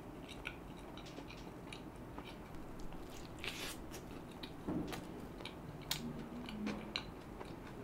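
Close-miked chewing of a mouthful of cheese-burst pizza: faint wet mouth clicks and smacks, with a sharper click about six seconds in followed by a short low hum.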